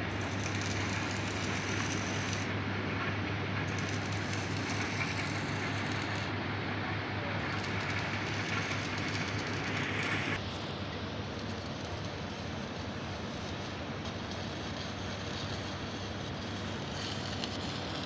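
Steady heavy machinery noise with a low hum. About ten seconds in the sound changes abruptly: the hum weakens and the level drops a little.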